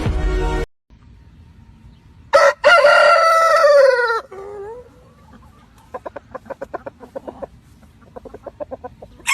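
A rooster crows once, the call falling in pitch at its end, followed by chickens clucking in two quick runs of short clucks. A snatch of music ends just before.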